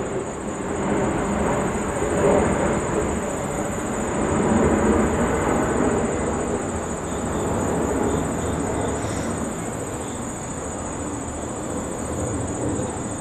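Distant rumbling noise that swells over the first few seconds and slowly fades, with a steady high-pitched insect drone running throughout.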